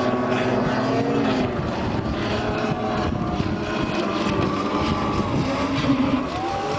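Snowmobile engine running at high revs as it skims across open water, steady in level with a wavering pitch.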